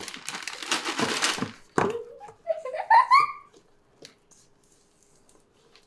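Red silicone spatula scraping and stirring butter and sugar in a stainless steel mixing bowl for about a second and a half, then a child's short rising giggle. It goes quiet after the giggle.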